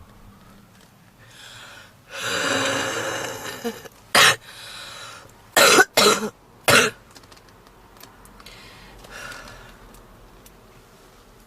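A woman's heavy smoker's cough: a long, noisy breath, then four sharp coughs, one on its own and then a quick run of three. The uploader calls this cough typical of smoker's bronchitis.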